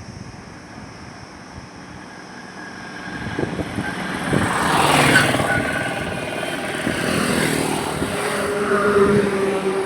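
Highway traffic with vehicles passing, the loudest pass coming about five seconds in and another swelling near the end. A steady engine drone comes in about eight seconds in.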